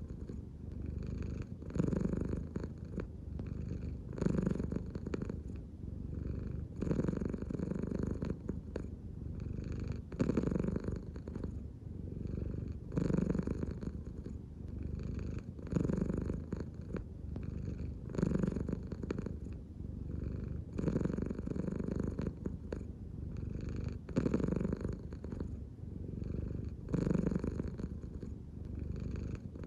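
American Shorthair cat purring steadily, the purr swelling louder about every two and a half to three seconds in time with its slow belly breathing.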